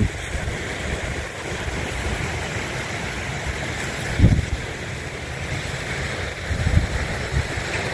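Small waves washing onto a sand beach with a steady wind hiss. There are two short low rumbles of wind against the microphone, about four and seven seconds in.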